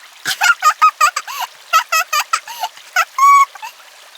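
A young child, about four to six years old, giggling in quick runs of short high laughs, with a brief held high squeal a little past three seconds in.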